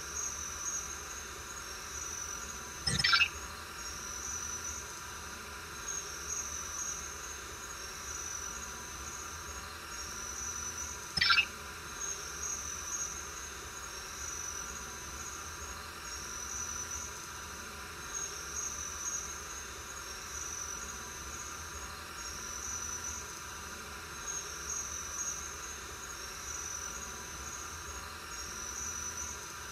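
Crickets chirping in short, even bursts, about one every second and a half. Two brief, squeaky sounds stand out, one about three seconds in and another about eleven seconds in.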